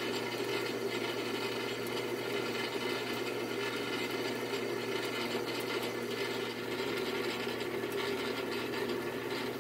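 Small metal lathe running, turning down a steel shaft to diameter: a steady motor and spindle hum with no change in speed.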